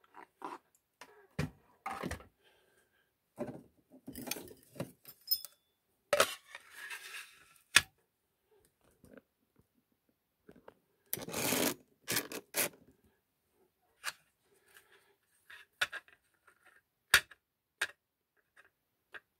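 Bench handling of a lock cylinder: irregular clicks and knocks of metal and plastic, with two longer scraping rubs about six and eleven seconds in, as the brass cylinder is set on a pinning tray and worked out of its blue plastic holder.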